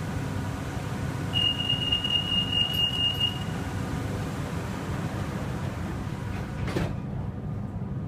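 Metro train car rumbling steadily, a deep even noise, with a single high steady tone held for about two seconds near the start.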